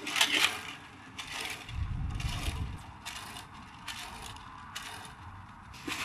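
Plastic garbage bag being handled, rustling and crinkling in short bursts about once a second, with a dull bump about two seconds in.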